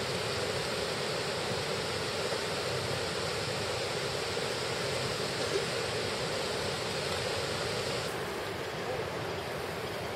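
Steady rushing of flowing river water, an even hiss with no distinct events; its higher part drops away about eight seconds in.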